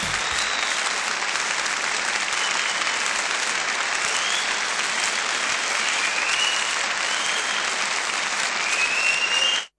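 Crowd applauding steadily, cutting off abruptly just before the end.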